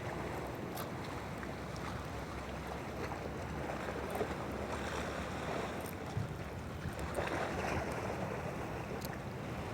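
Sea waves washing on the shore with wind buffeting the microphone, swelling a little twice, and a few faint clicks.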